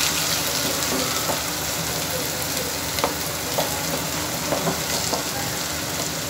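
Onion and tomato-puree masala sizzling in hot oil in a non-stick kadhai, stirred with a wooden spatula, as pieces of fried chicken are tipped into it from another pan. A steady sizzle with scattered small clicks.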